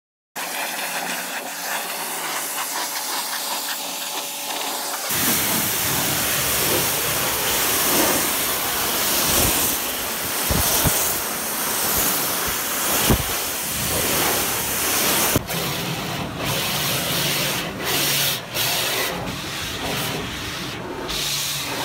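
High-pressure water jet from a pressure-washer lance rinsing foam wax off a car, the spray hissing and spattering on the bodywork and glass. A softer hiss for the first few seconds gives way to the louder, fuller spray about five seconds in, with a few knocks.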